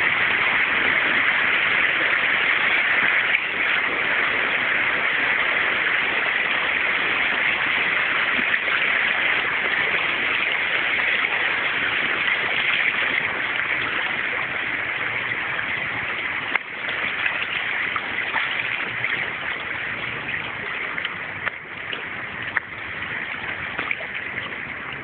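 Shallow water of the Kamo River rushing steadily over and around stepping stones, with a hiss-like flow that eases somewhat in the second half and a few faint ticks.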